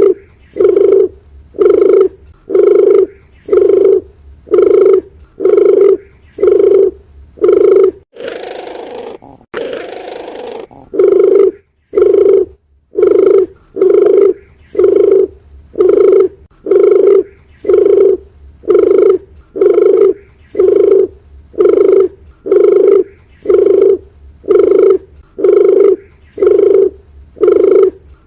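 Dove cooing: one low, hollow coo note repeated about once a second in a long, even series, typical of a looped lure call. About eight seconds in, the coos break off for a few seconds of quieter noise and a brief silence, then resume at the same steady rate.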